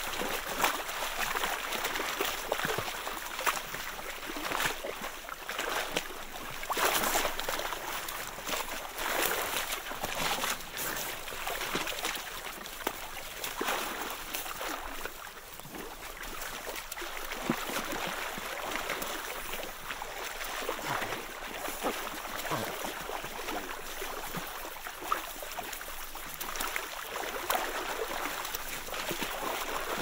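A group of emperor penguins moving in and out of a water hole in sea ice: continual splashing and trickling water with many short, sharp splashes throughout.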